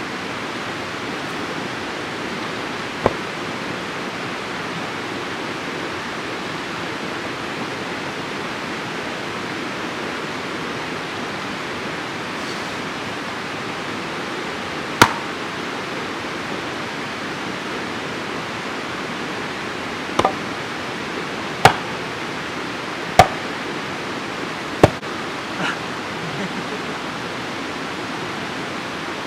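A steady rushing noise, with six sharp knocks or cracks: one about three seconds in and the rest in the second half.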